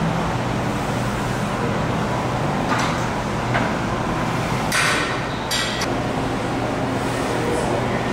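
Plate-loaded 45-degree leg press in use: a few sharp metallic clanks, the loudest a pair about five seconds in, over a steady rumble of room noise.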